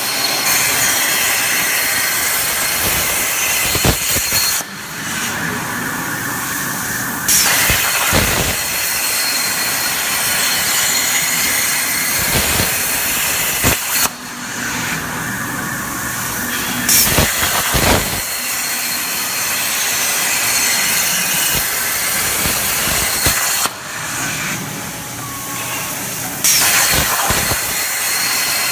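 CNC plasma torch cutting metal: a loud, steady hiss. The hiss thins out three times for two to three seconds, then comes back suddenly each time.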